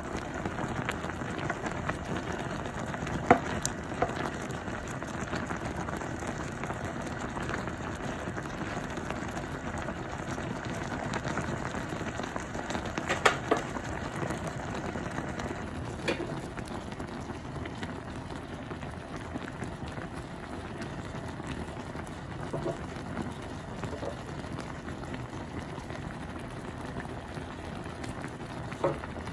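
Sinigang broth with pork spare ribs boiling in a pot, a steady bubbling hiss, with a few sharp clicks scattered through.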